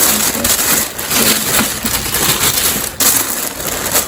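Paper packaging crinkling and rustling as it is handled close up, a dense irregular crackle throughout.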